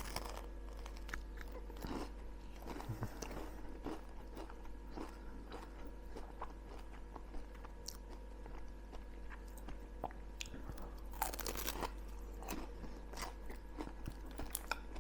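A person biting into and chewing a McDonald's pastry pie close to the microphone: scattered soft crunches of the shortcrust pastry, with a denser run of crunching about eleven seconds in. A faint steady hum runs underneath.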